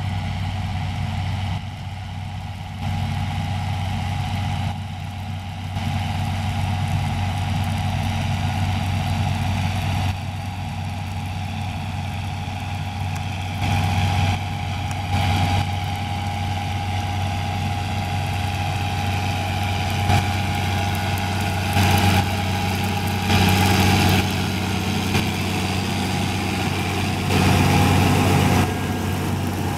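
John Deere 6920 tractor's six-cylinder diesel engine running steadily under load while pulling an air seeder, with a steady whine above the engine note. It swells louder several times in the second half as the tractor comes close.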